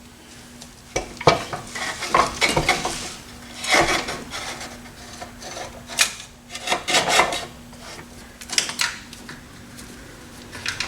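Metal tools and parts clinking, clanking and scraping as they are handled, in irregular bursts, over a faint steady hum.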